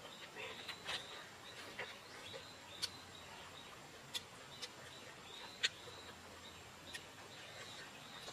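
Faint close-up eating sounds: scattered sharp clicks of chewing and lip smacks, roughly one every second. Faint high bird chirps are heard now and then in the background.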